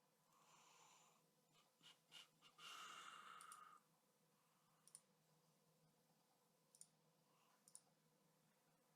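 Near silence with a few faint, sharp clicks from computer input while frames are picked, and a brief soft sound about three seconds in.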